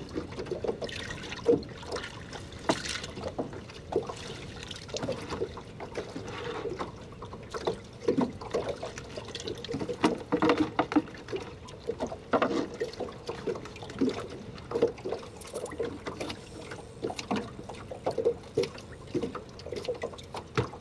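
Water sloshing and dribbling in a plastic bait bucket as hands and a tool work in it, with irregular small splashes and clatters.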